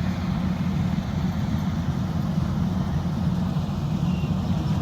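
Combine harvester's engine running steadily, a low even drone with no change in speed.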